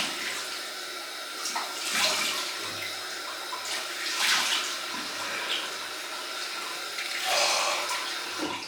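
Cold water running from a sink tap, with louder splashes every two seconds or so as water is scooped up to rinse the face after a shave.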